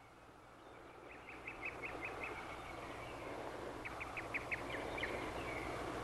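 Outdoor background ambience: short high chirps in quick runs of five or six, twice, with a few more near the end, over a soft hiss that swells from about a second in.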